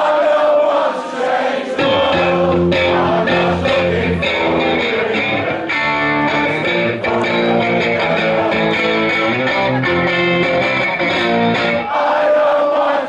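Live amplified band music with no vocals: a strummed electric guitar, with a low bass part coming in about two seconds in and dropping away near the end.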